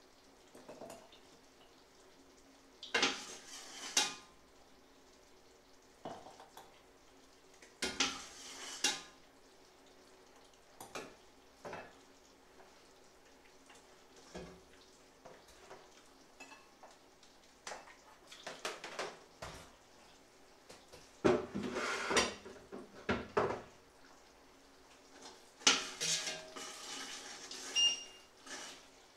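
Metal ladle clinking and scraping against a stainless steel pot and a metal funnel strainer as liquid is ladled out, in short clusters a few seconds apart, with a brief bright metallic ring near the end.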